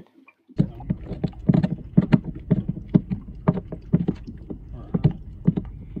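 A dog gnawing on a bone: irregular crunching clicks and knocks, several a second, starting about half a second in, over a low steady rumble.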